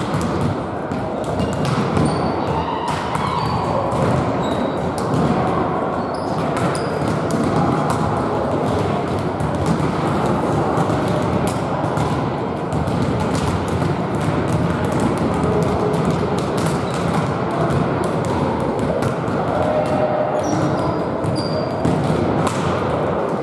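Volleyballs being struck and bouncing on a wooden sports-hall floor: many irregular thuds, echoing in the large hall, with a few short high squeaks.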